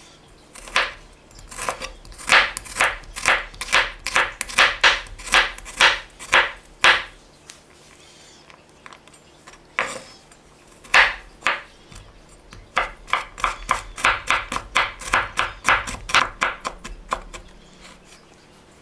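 Knife chopping food on a cutting board: a steady run of strokes, about three a second, then a pause with two single strokes, then a second run of strokes.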